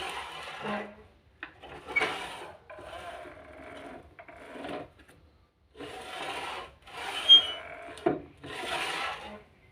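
A woodworking hand tool scraping over wood in a series of repeated strokes, each about a second long with short pauses between, and a sharp click now and then.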